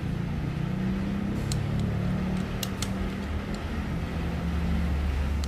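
Steady low mechanical hum, with a few faint clicks from a torque wrench tightening camshaft bearing-cap bolts.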